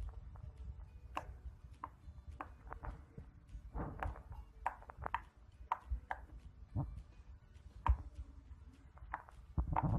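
Irregular soft clicks and taps, about one or two a second, some slightly sharper than others, over a faint low rumble.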